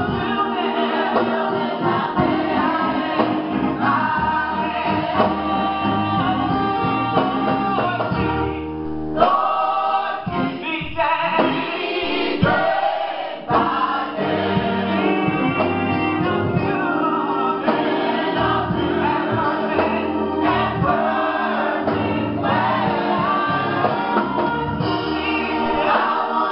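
Gospel choir singing with band accompaniment. The low accompaniment drops out for a few seconds around the middle.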